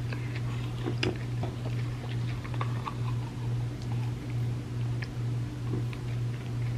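Close-miked chewing with scattered small clicks from the mouth, over a steady low hum.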